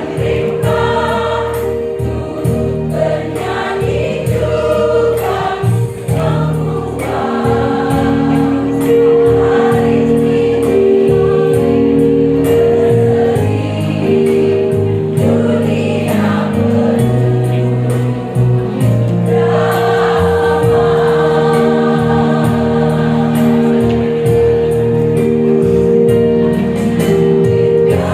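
Women's choir singing in full voice, with long held chords.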